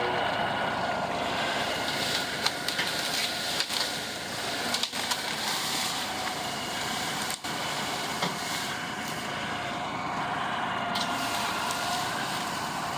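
Tractor engine running steadily under load, its pitch holding with slight wavering, with brief breaks where the sound cuts abruptly.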